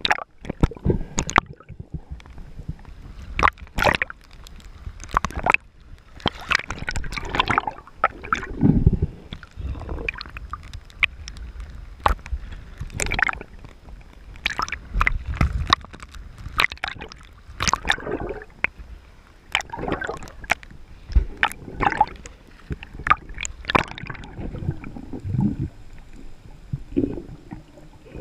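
Sea water sloshing and gurgling against a camera held at and just below the surface, with irregular splashes.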